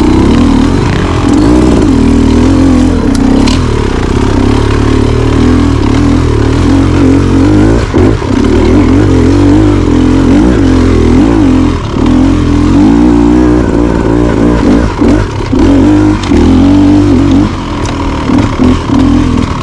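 Two-stroke Beta Xtrainer dirt bike engine under way, its revs rising and falling constantly as the throttle is worked, with brief throttle cuts now and then.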